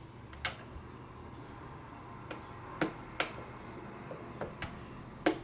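Screwdriver prying at the air box clips of a Ducati SuperSport 1000: a handful of sharp, irregular clicks and taps as the tool catches and a clip snaps loose.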